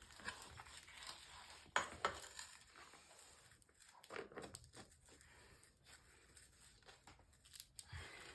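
Tire levers scraping and clicking against a dirt bike's wheel rim as the rubber tire bead is pried over it, with two sharper knocks about two seconds in.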